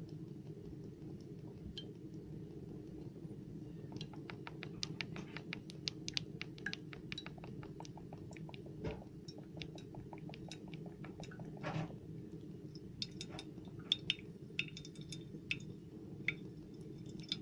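Cooking oil glugging out of a bottle as it is poured into a kazan. Small sharp pops come in a fast even run of about four or five a second starting a few seconds in, then come more irregularly, with a few louder ones. A low steady hum sits underneath.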